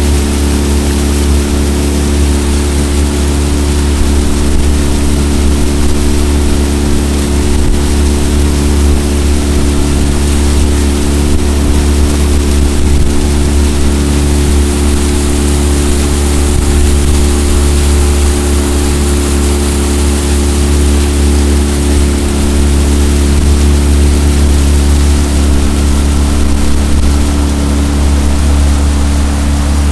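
Outboard motor on an aluminium jon boat running steadily under way, holding one even pitch with no revving, over a constant hiss of wind and water.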